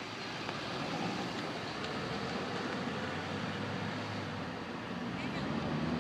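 Car engine and tyre noise from passing traffic, growing louder near the end as a car approaches.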